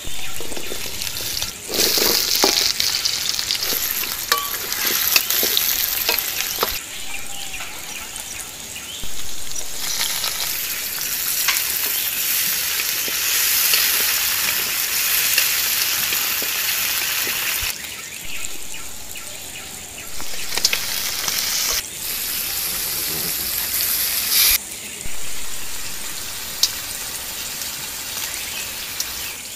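Food sizzling and spitting in hot oil in a steel wok, with a spatula stirring and scraping against the metal. The sizzle rises and drops abruptly several times.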